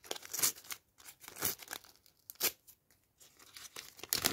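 A Topps sticker packet being torn open by hand, with short, irregular rips and crinkles of the wrapper.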